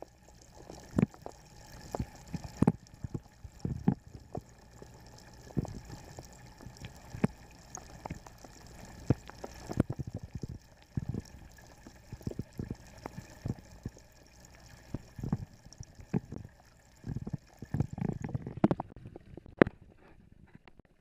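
Muffled gurgling and sloshing of pond water heard from underwater, broken by many irregular knocks and thumps. It goes quieter shortly before the end as the camera comes up out of the water.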